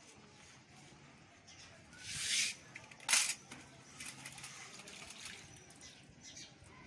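Fresh green stalks rustling and snapping as they are stripped and trimmed by hand, with two louder rustles about two and three seconds in, then faint crackling.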